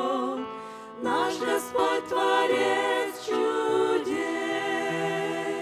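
A group of women singing a Russian hymn in harmony into microphones, ending the phrase on a long held chord.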